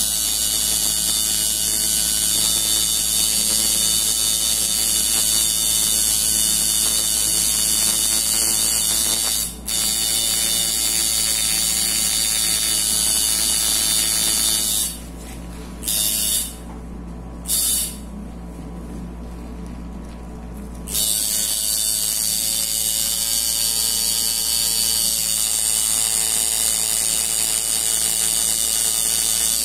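Coil tattoo machine buzzing steadily as it shades artificial practice skin. It drops out for an instant about ten seconds in, then stops for several seconds midway, broken by two short bursts, before running again.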